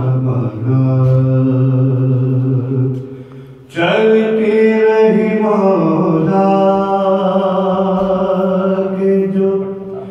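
A man's unaccompanied voice chanting an Urdu devotional elegy in long held notes. About three seconds in he breaks off for a breath, starts a new phrase, and the last note fades near the end.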